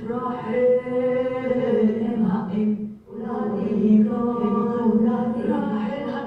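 Voices singing a slow chant in long notes, with a short break about three seconds in.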